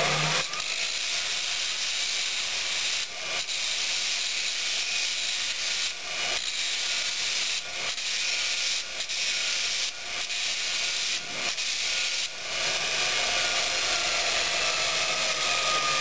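Belt grinder with a coarse 40-grit belt grinding rust and scale off the head of a steel railroad spike: a steady, hissing grind that breaks off briefly several times as the spike is lifted from the belt and pressed back. About three-quarters through the grinding stops, leaving the machine running with a faint whine that slowly falls in pitch.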